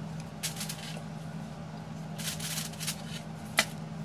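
Crinkling and rustling as gloved hands move and arrange fish on a foil-lined baking tray, in two bursts, with one sharp click near the end.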